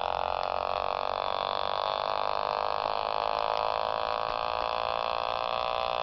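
Reed-switch pulse motor picked up by a small portable radio: the reed switch turning the drive coil on and off at a high rate comes through as a steady electrical buzz with many overtones. Its pitch follows the speed of the magnet top spinning at high RPM.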